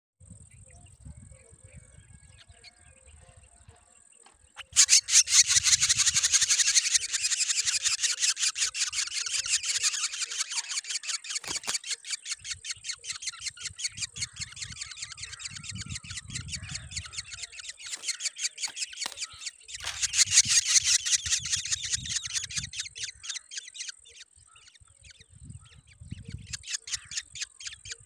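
Drongo nestlings begging for food: a fast, harsh chatter of begging calls, several a second, starting about five seconds in, easing off in the middle, swelling again about twenty seconds in and once more near the end.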